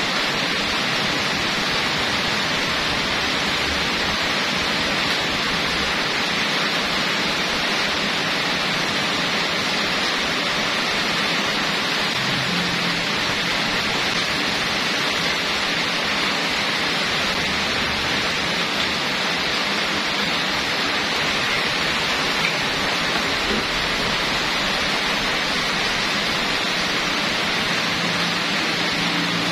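Steady, even hiss that holds at one level throughout, with no distinct knocks, clicks or tones.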